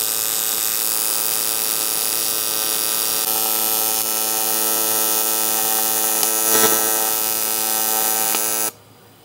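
AC TIG welding arc buzzing steadily while welding 2.5 mm aluminium at about 115 A, with the AC frequency set to 110 Hz and 35% balance. There is a brief louder flare about two-thirds of the way through. The arc cuts off abruptly near the end as the bead is finished.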